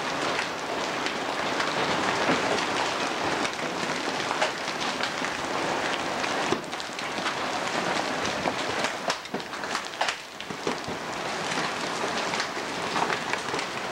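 Heavy hail falling with rain: a dense, steady hiss of the downpour, broken by many sharp clicks and cracks of large hailstones striking.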